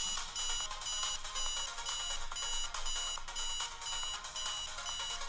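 Cell phone ringing for an incoming call: an electronic ringtone of rapid, evenly repeating high beeps.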